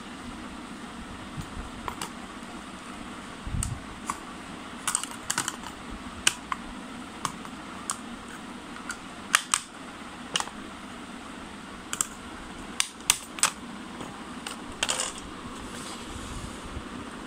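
Sharp plastic clicks and snaps at irregular intervals, some in quick clusters, from a Tenda N301 wifi router's plastic case being handled and opened, over a steady background hum.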